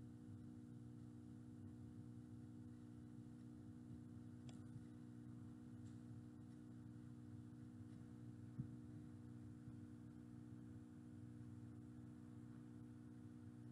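Near silence: room tone with a steady low hum, and one faint tap past the middle.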